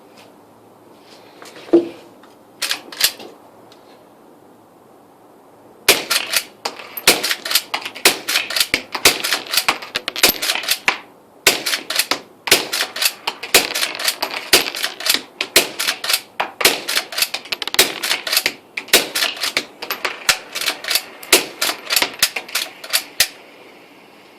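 Henry lever-action .22 LR rifle with a silencer firing subsonic rounds in quick succession: sharp, clicky reports mixed with the clack of the lever being worked between shots, several sounds a second. There is a short pause in the string partway through.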